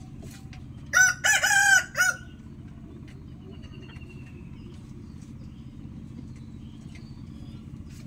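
A rooster crows once, about a second in: a cock-a-doodle-doo lasting about a second, with a short final note at the end. A steady low hum runs underneath.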